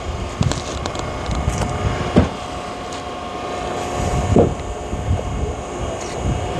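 Hydraulic log splitter running with a steady hum while oak logs are split, with sharp cracks about two seconds in and again near four and a half seconds.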